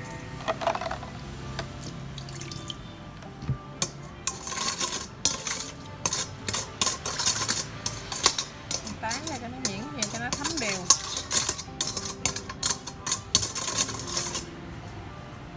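Metal spoon stirring a thin marinade in a stainless steel bowl: a quick, irregular run of clinks and scrapes against the bowl's sides. It starts a couple of seconds in and stops shortly before the end.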